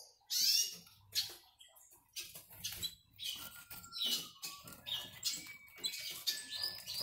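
Newly hatched pintagol chicks (goldfinch × canary hybrids) giving a run of short, high, squeaky cheeps, with rustling and clicks as hands handle them and their sisal nest.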